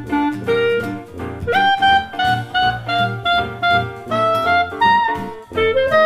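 Background music: a jazzy tune led by a saxophone-like wind instrument over a steady beat.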